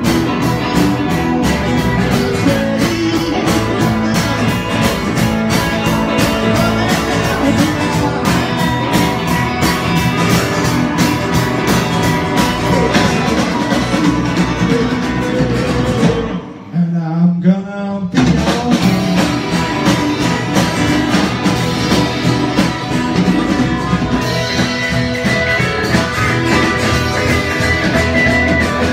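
Live blues-rock band playing loudly, with electric guitar, drums and harmonica. About sixteen seconds in, the band stops for about a second and a half, leaving a single bending note, then comes back in.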